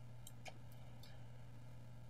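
Faint steady low hum with a few soft clicks in the first second, typical of computer mouse clicks.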